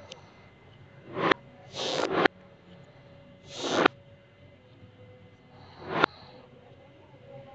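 Small magnetic metal balls being moved over a laminated board by hand: four short scraping rushes, each swelling and ending in a sharp stop as the ball comes to rest or snaps against another.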